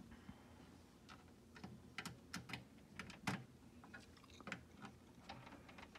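Faint, irregular clicks and ticks of a small screwdriver and fingers on the plastic chassis of a Microsoft Surface Precision Mouse as it is screwed back together. The sharpest tick comes a little past three seconds in.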